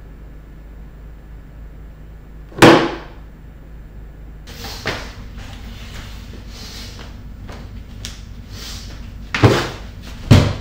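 A single sharp bang with a short ring about two and a half seconds in, then scuffing and rustling, and two more loud knocks near the end.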